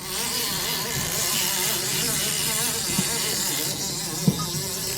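Steady buzzing drone of a fishing boat's motor running, with wind and water hiss over it and a couple of light knocks about three and four seconds in.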